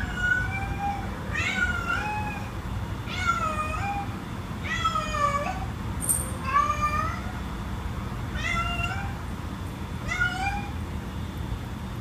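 Domestic cat meowing repeatedly: seven calls, each rising in pitch toward the end, about one every one and a half seconds.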